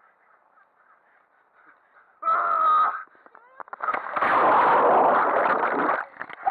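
A high-pitched yell lasting under a second, then about four seconds in, loud splashing and rushing water as the camera is plunged and dragged through the lake, heard close and churning for about two seconds.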